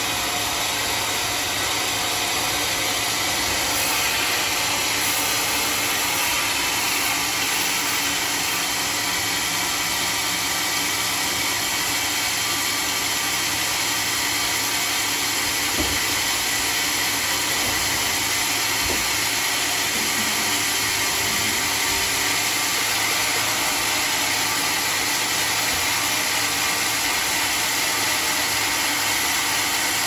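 Homemade band sawmill running steadily, its band blade sawing through a waterlogged, rotting wadang log, with a couple of faint knocks around the middle.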